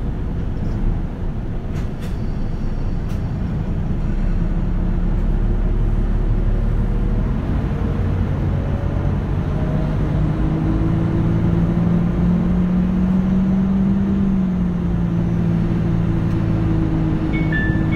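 A Nissan Diesel KL-UA272KAM city bus heard from inside the cabin as its diesel engine pulls away, rising in pitch for about ten seconds, dipping slightly at a gear change and then running steady. A couple of light clicks come about two and three seconds in. Near the end an electronic chime starts, playing short high notes.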